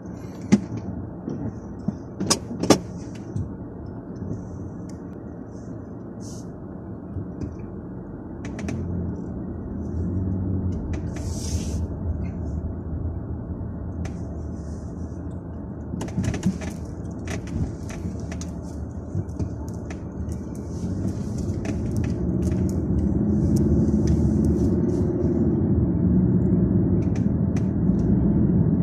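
Inside a moving car: steady engine and tyre noise, growing louder as the car picks up speed in the second half. A few sharp clicks sound in the first few seconds.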